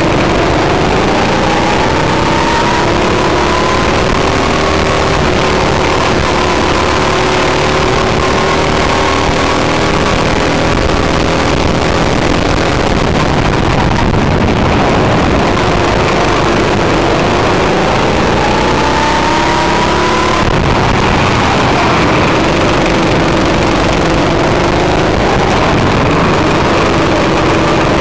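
Go-kart engine heard from onboard the kart at race speed, its pitch climbing under throttle and falling off when the throttle is lifted for the corners, with a sharp drop about two-thirds of the way through.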